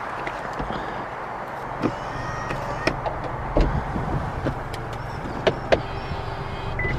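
Vauxhall Cascada's electric folding roof in operation: a motor whine that comes and goes, with a string of clicks and clunks as the roof mechanism moves.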